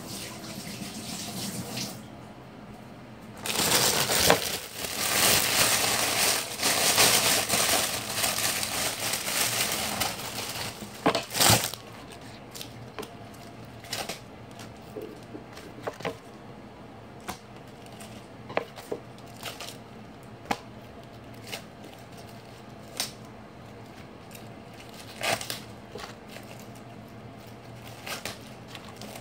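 Kitchen tap running for about seven seconds, then shutting off. Scattered light knocks and leaf crinkles follow as romaine lettuce is handled on a wooden cutting board.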